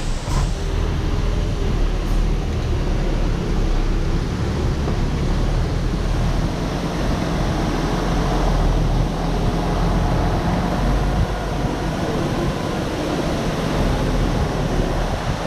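Truck running, heard from inside the cab as a steady, dense rumble with road and wind noise.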